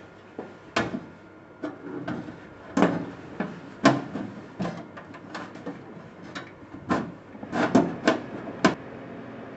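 Irregular clanks and knocks as a desktop PC's metal case is closed back up, about a dozen sharp hits spread unevenly.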